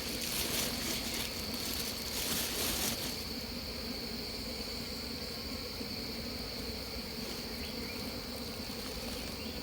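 A swarm of wild honeybees buzzing around their broken-open tree-hollow nest: a steady low hum under a constant high insect tone. Two brief rustling swells in the first three seconds.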